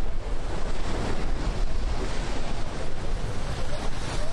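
Wind gusting across the microphone over open water, a steady rushing noise with a rumbling low end.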